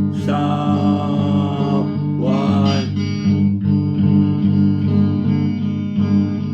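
Guitar playing a steady, repeating chord pattern, with a higher melody line sliding over it for about the first three seconds, then the guitar alone.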